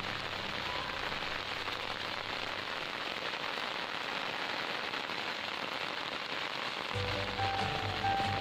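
Steady rain falling on a paved road and tropical foliage, an even hiss. Low background music fades out just after the start and comes back about seven seconds in.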